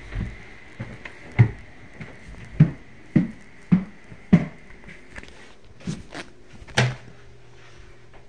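Footsteps walking at an even pace, a dull thud about every 0.6 seconds, over a faint steady high hum. A louder, sharper knock comes near the end.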